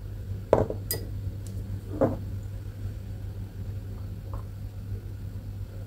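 Cut-glass dessert bowls set down on a hard countertop: a few light knocks, the two loudest about half a second and two seconds in, over a steady low hum.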